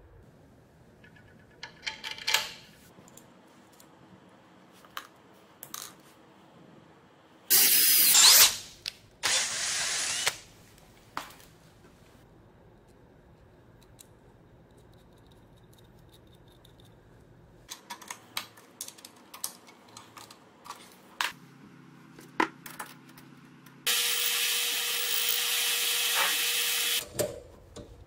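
Workshop work on small steel parts: clicks and taps of hand tools, and short runs of a power tool, two brief loud bursts in the first half and a steadier run of about three seconds near the end.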